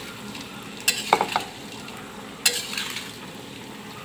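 Fried tofu and tempeh cubes sizzling in oil in a wok while a metal spatula stirs them, with a steady hiss of frying. The spatula scrapes and clanks against the pan about a second in, with a brief ring, and again at about two and a half seconds.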